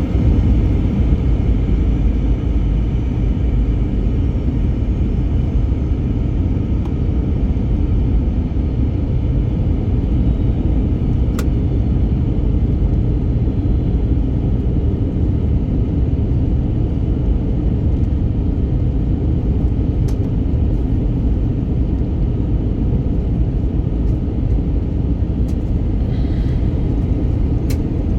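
Steady cabin noise inside an Airbus A320neo: a loud, deep rumble of engines and airflow with faint whining tones above it. A few light clicks come through the cabin at scattered moments.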